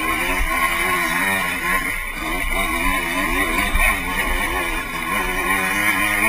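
Off-road dirt bike engine heard up close from the rider's own onboard camera, its revs rising and falling over and over as it is worked along a rough trail.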